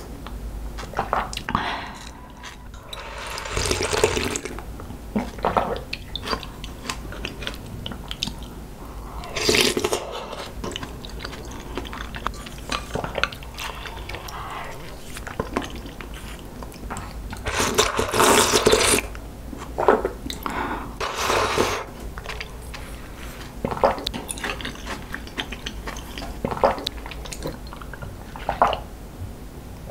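Close-miked eating sounds: sips and slurps of egg soup and soft chewing, coming in short scattered bursts, with swallows of water near the end.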